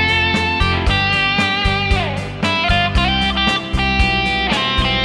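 A 2000 PRS Custom 22 electric guitar with a Line 6 POD HD overdrive tone, picking a single-note lead line. A note bends up at the start and another slides down about two seconds in, over a steady beat.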